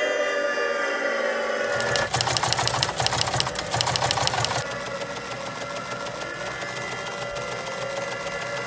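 A small machine clattering rapidly for about three seconds, starting about two seconds in, over a sustained droning tone of several notes that goes on more quietly after the clatter stops.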